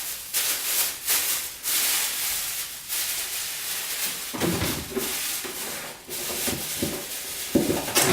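Plastic bag crinkling and rustling as it is handled, with a few dull knocks from handling in the second half.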